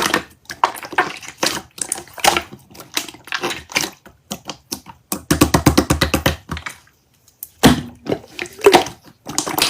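Slime being squished and pressed by hand, giving a string of sticky clicks and pops. A rapid run of clicks comes about five seconds in, and after a short pause near seven seconds the pops carry on.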